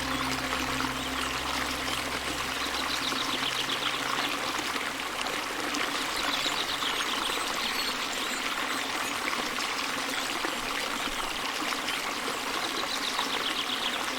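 Stream water flowing and trickling steadily. A low music drone fades out in the first few seconds, and a faint high rapid trill is heard three times.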